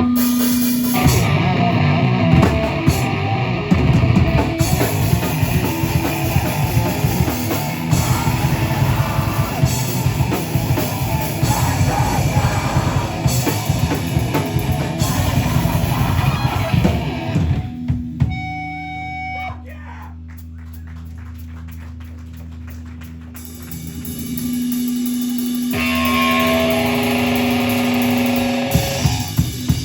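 A live heavy rock band playing loud, with distorted electric guitars, bass and a drum kit. About eighteen seconds in, the full band drops out to held guitar notes that ring on. The guitars build again, and the drums come back in with steady hits near the end.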